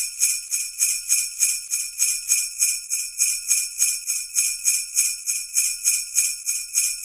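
Sleigh bells shaken in a steady rhythm, about three shakes a second, bright and jingling.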